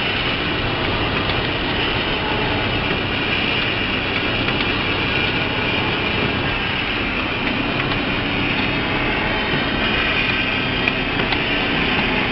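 Automatic lunch box sealing and packing machine running: a steady mechanical hum and rush, with a few small clicks near the end.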